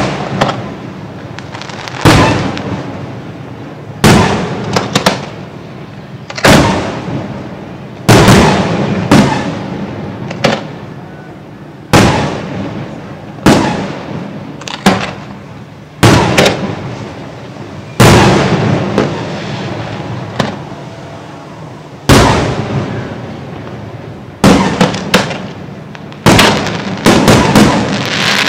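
Aerial fireworks display: shells bursting with sharp bangs every one to two seconds, each trailing off in a long rumbling echo, and a quick cluster of bangs near the end.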